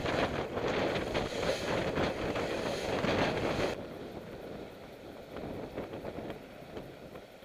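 Loud, steady rush of a sailboat's bow wave and spray as the hull drives through choppy water, with wind buffeting the microphone. About four seconds in it cuts abruptly to a quieter, duller rush of wind and water.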